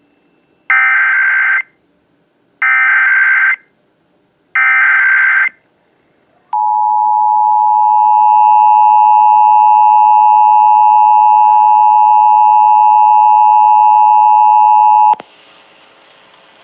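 Emergency Alert System SAME header: three loud bursts of screeching digital data tones, each about a second long and about two seconds apart. About six and a half seconds in, the two-tone EAS attention signal (853 and 960 Hz together) starts and holds steady for about eight and a half seconds, then cuts off suddenly, leaving a faint hum.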